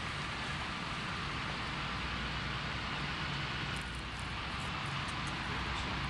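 A steady, low engine drone under an even outdoor hiss.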